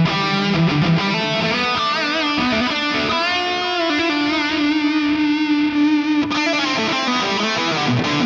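Distorted electric guitar played through a Mesa Boogie Dual Rectifier amp simulation (ML Sound Lab Amped Dual), a lead line with wavering vibrato notes and one long held note, changing to lower, choppier playing near the end.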